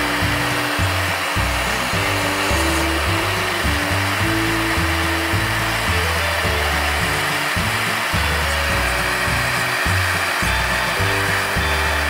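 A gas torch burning with a steady hiss as its flame heats a padlock, over background music with a bass line that steps between notes about twice a second.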